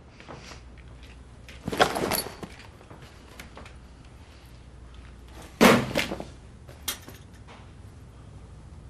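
Two loud thuds, the first about two seconds in and a louder, sharper one about five and a half seconds in, followed by a small click.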